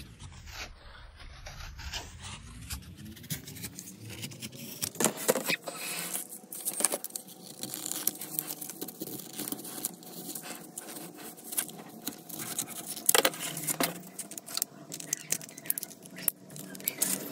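A small motor winds up over the first few seconds and then runs steadily, while something scrapes and clicks against a hard surface throughout.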